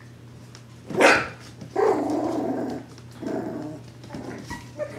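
Mini Bernedoodle puppies barking and growling in play: a sharp yip about a second in, then a longer growly bark and a shorter one after it.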